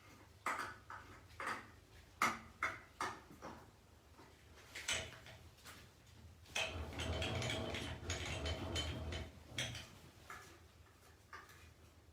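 Sharp metal clinks and knocks as steel tooling and the plate are handled, then a steady mechanical noise lasting about three seconds, with a low rumble under it, before a few more small clicks.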